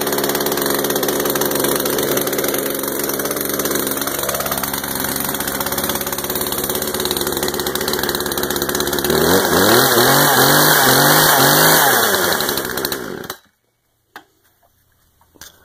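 Poulan P3314 33 cc two-stroke chainsaw idling steadily, then revved in about four quick throttle blips that rise and fall in pitch. The engine then stops abruptly near the end.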